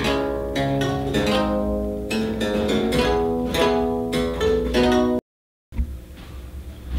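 Sabathil & Son harpsichord played on its 8-foot register with the lute stop engaged: a passage of plucked notes that breaks off suddenly about five seconds in.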